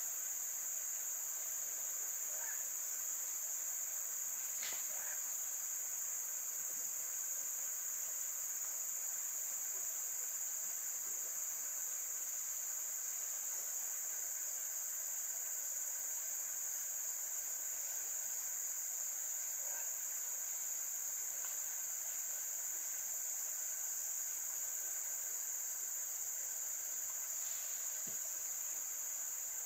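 A steady chorus of tropical forest insects: a continuous shrill, high-pitched buzzing that does not change, with a few faint short sounds over it here and there.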